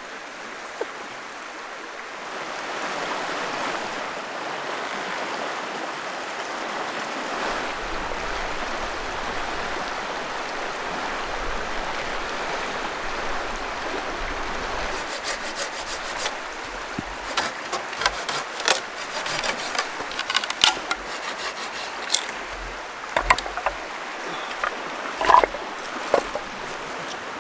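Shallow river water running and splashing around the turning paddle of a homemade stick water wheel. From about halfway, a run of irregular wooden knocks and clacks as split firewood is handled.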